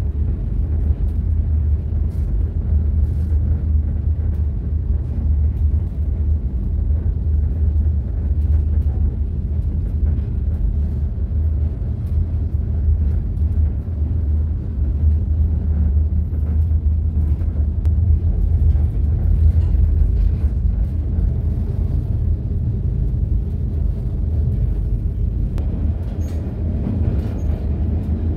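Unification Express passenger train running: a steady low rumble, with faint clicks and rattles over it.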